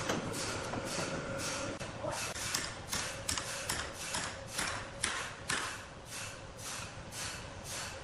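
Rhythmic scraping or brushing strokes, a little over two a second, over the steady hum of sawmill machinery.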